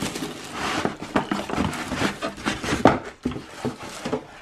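Plastic wrapping crinkling and moulded pulp packaging rustling and scraping against cardboard as a toaster is lifted out of its box, with irregular small knocks and clicks.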